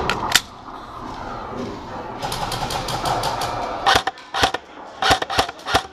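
Airsoft gun firing single shots: a sharp click just after the start, then from about four seconds in a run of sharp, irregular cracks, several a second.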